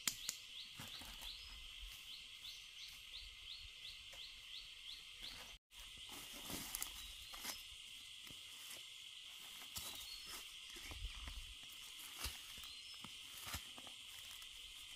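Insects buzzing steadily in a high band, with a light chirp repeating about four times a second for the first five seconds. Scattered soft knocks, scrapes and leaf-litter rustles come from a long knife digging into the soil.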